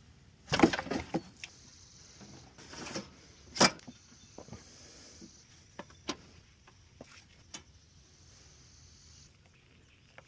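Hard knocks and clatter of parts and tools being handled during a repair: a burst of clatter about half a second in, a short scrape around three seconds, one sharp knock just after, then scattered light clicks.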